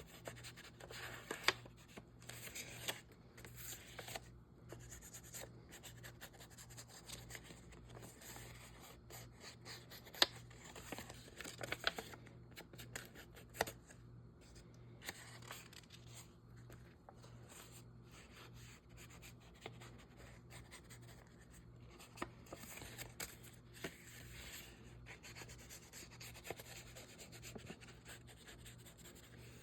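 Faint rubbing and scratching with many small irregular taps as ink is worked onto the edges of paper pages in a handmade journal, over a steady low hum.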